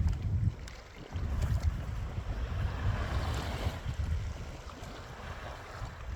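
Wind buffeting the microphone in gusts over a rushing of water, which swells about three seconds in.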